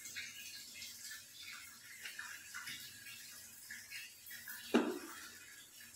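Faint crackling and rustling of a stingless bee nest's dry resin and brood comb being picked through by fingers, with one louder brushing thump about five seconds in.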